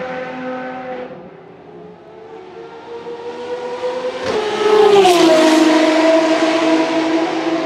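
Ferrari XX-programme V12 race car passing at speed on a wet track. Its engine note climbs as it approaches and is loudest about five seconds in, with a hiss of spray. The pitch then drops sharply as it goes by and settles to a steady note as it moves away. Before it comes, a previous car's engine fades out about a second in.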